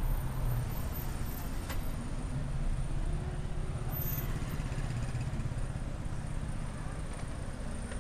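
Slow street traffic: cars and a scooter running at low speed on a narrow stone-paved street, a steady low rumble.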